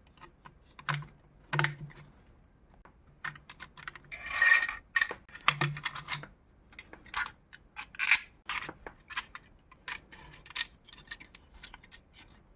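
Hard plastic clicks, taps and snaps as 3D-printed plastic parts are handled and worked by hand, with a longer scraping crackle about four and a half seconds in.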